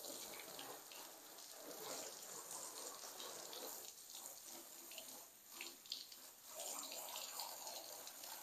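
Fairly faint water running from a garden hose, splashing onto a car and wet concrete.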